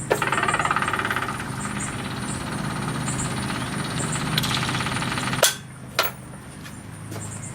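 Kubota BX2670's electric fuel pump running with the key switched on, a fast ticking buzz, pushing fuel out of the opened bleed bolt to purge air from the fuel system after a filter change. It stops about five and a half seconds in with a click, and a second click follows.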